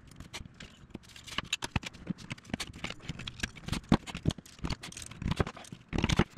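Primed aluminum bulkhead parts and clecos handled on a workbench: a run of irregular small clicks and taps, with clecos being set into the rivet holes with cleco pliers near the end.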